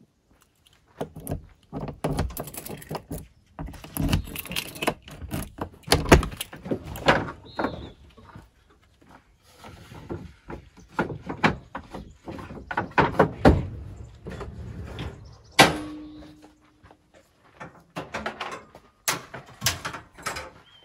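Camping gear being handled and moved about: repeated knocks, thumps and clatter as things are pulled from a camper trailer's rear hatch and set down, in uneven bursts with short pauses.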